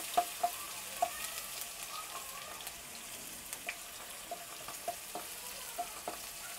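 Sliced onions frying in hot oil in a nonstick kadhai: a steady, even sizzle, with a few sharp ticks as they are stirred with a wooden spatula.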